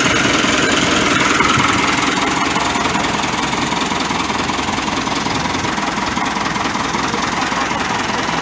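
Ford 5880 tractor's diesel engine running steadily, easing slightly quieter about two seconds in.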